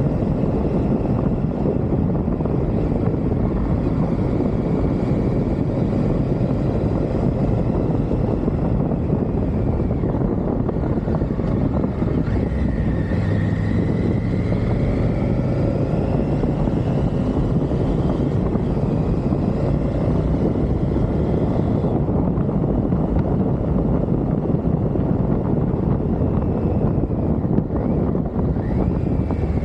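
Triumph Tiger motorcycle's engine running on the move, its pitch slowly rising and falling with the throttle, under a steady rushing noise of wind and road.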